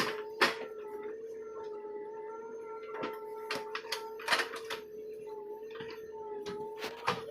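A small motor whining at a steady pitch, with irregular sharp clicks and knocks over it.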